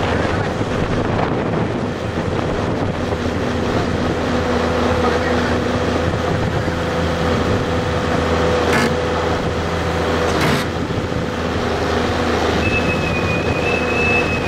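Tracked hydraulic excavator's diesel engine running steadily at a low hum, with two sharp knocks around the middle and a short high tone near the end.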